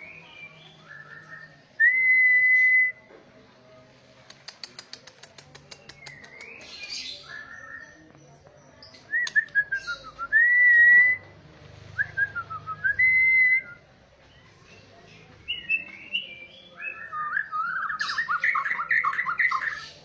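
White-rumped shama singing: clear whistled notes, a run of fast dry ticks about four seconds in, and a rapid warbling trill near the end.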